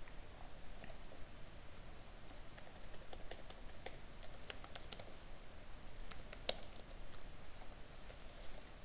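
Typing on a computer keyboard: irregular key clicks in quick runs, with one louder keystroke about six and a half seconds in.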